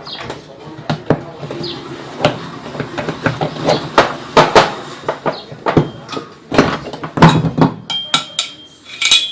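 Irregular metallic clinks and knocks of wrenches and steel parts being handled while a Brastemp Ative washing machine's transmission mechanism is dismantled, with a short ringing metal tone near the end.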